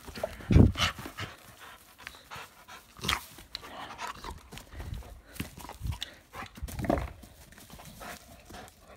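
A dog panting while it plays tug-of-war with a rope toy, with irregular bumps and rustles from the tussle. The loudest is a thump about half a second in.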